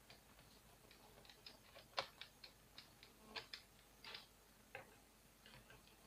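Faint, irregular small clicks and ticks of a screwdriver backing screws out of a laptop's plastic bottom cover, with one sharper click about two seconds in.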